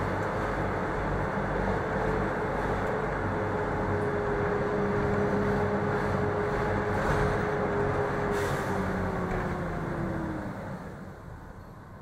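Mercedes-Benz O500M city bus's diesel engine running under way, with a steady whine over the engine noise. Near the end the whine slides down in pitch and the engine sound falls away as it drops back off load.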